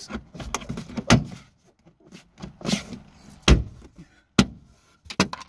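Plastic A-pillar trim being pushed and knocked back onto the pillar by hand: an irregular series of sharp clicks and knocks as its clips snap home, the loudest about three and a half seconds in.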